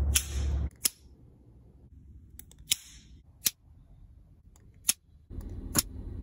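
Kershaw Launch 13 automatic knife being fired open and closed: about six sharp snapping clicks, spaced irregularly a second or so apart.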